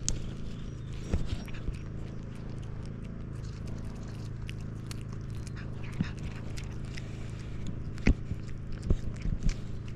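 Tuxedo cat chewing and biting a piece of raw salmon, with wet clicks and smacks, the sharpest near the end, over a steady low purr.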